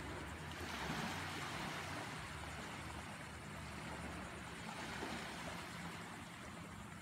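Small surf breaking and washing up the shore, swelling about a second in and again near five seconds, over a low wind rumble.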